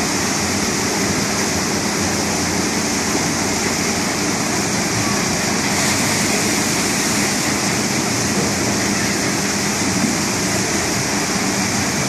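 Log flume water rushing steadily, pouring down the ride's chute and churning through its channel, with a low steady hum underneath.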